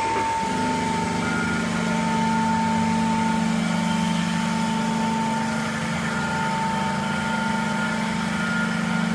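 LMD 3000 straight-knife grinding machine running: a steady high whine throughout, joined about half a second in by a lower, steady motor hum.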